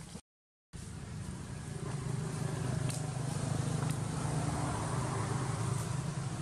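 A motor vehicle engine hums steadily, growing louder through the middle and easing off toward the end as it passes. A couple of faint clicks sound over it, and the sound drops out for about half a second just after the start.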